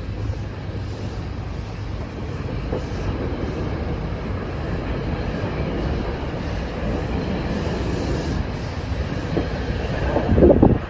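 A departing train rolling on the rails: a steady rumble of wheels and cars, growing louder and peaking briefly shortly before the end.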